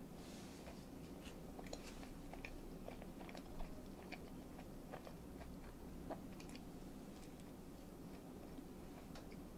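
Close-up eating sounds of a miso katsu sandwich being bitten and chewed: many small scattered crunchy clicks and moist mouth sounds, the sharpest about three and a half seconds in.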